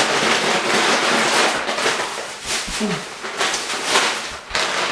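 Plastic bag rustling and crinkling as it is handled and filled, with dense crackles and a few short pauses. A brief vocal sound about three seconds in.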